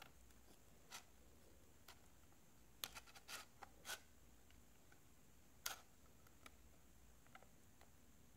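Light clicks and taps of a small screwdriver and fingertips against an iPad's replacement glass digitizer panel and frame, in a cluster about three to four seconds in and a sharp one near six seconds; in between, near silence.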